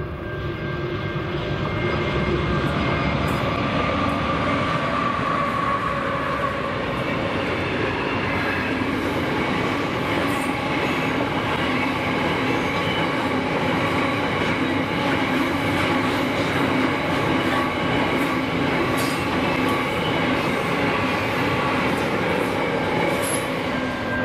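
Diesel-hauled loaded grain train passing close by: the sound builds over the first couple of seconds as the locomotives come up, then the hopper wagons' wheels rumble steadily along the rails, with scattered clicks at rail joints and a faint wheel squeal.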